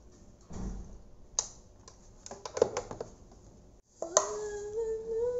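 Plastic clicks and clatter of a Panasonic desk telephone's handset being hung up on its cradle, with the coiled cord handled. About four seconds in, after a cut, a voice holds one long, slightly rising note.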